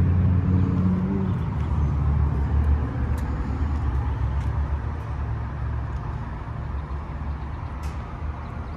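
A motor vehicle's engine running with a low, steady hum for about the first second, then a low rumble that slowly fades.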